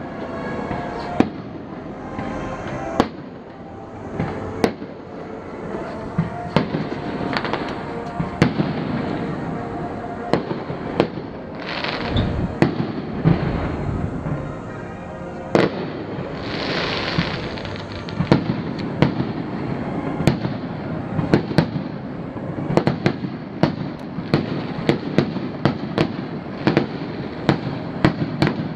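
Aerial fireworks shells bursting, each a sharp bang. The bangs come a few seconds apart at first, then in quick succession through the second half.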